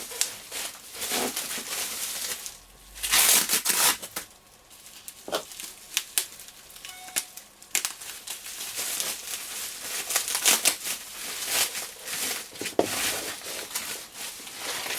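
Packing wrap being crinkled and torn open by hand, in irregular rustles and clicks, loudest about three seconds in.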